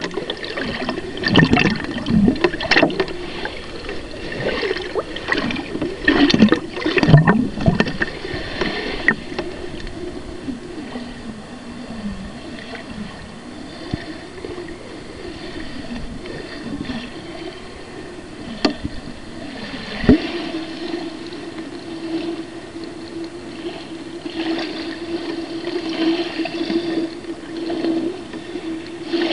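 Muffled underwater sound picked up through a sealed plastic food container: water sloshing and gurgling, with irregular knocks and bumps against the container in the first several seconds. A steady low hum sets in about twenty seconds in.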